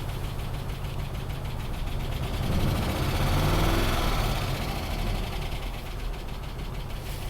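2005 Dodge Ram 2500's 5.7 Hemi V8 running with a fast, regular tick and a misfire on one cylinder, which the mechanic takes for a worn camshaft lobe under a seized roller lifter. About two and a half seconds in the engine rises briefly in speed and level, then settles back to idle.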